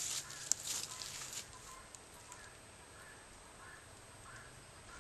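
Cloth and plastic rustling as the denim and jug of a penetration-test target are handled, lasting about a second and a half, with a sharp click about half a second in. Faint short bird calls repeat throughout.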